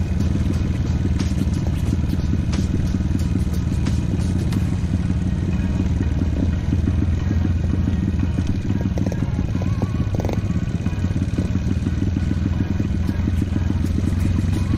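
Yamaha RX-King's two-stroke single-cylinder engine running at a steady, moderate throttle while the motorcycle rides a rough trail. Scattered knocks and clatter from the bike over bumps.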